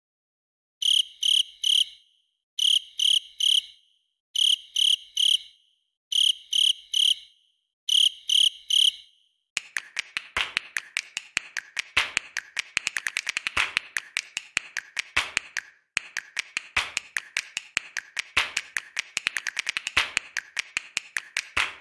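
Crickets chirping: high, sharp chirps in groups of three, repeating about every two seconds, then from about ten seconds in a denser, faster, irregular chirping.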